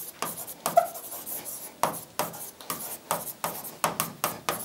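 A pen or stylus writing by hand on the glass face of an interactive display: short scratching and tapping strokes, two or three a second, as words are written out letter by letter.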